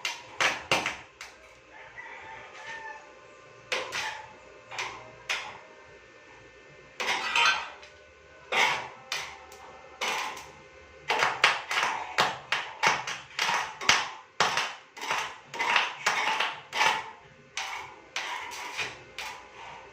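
Irregular series of sharp hammer strikes on metal, one to three a second, each ringing briefly, with short pauses between runs.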